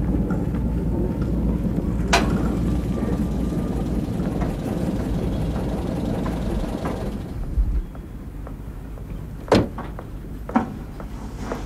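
Steady low rumble of a car driving by, which drops away about eight seconds in, followed by a quieter background and two sharp knocks near the end.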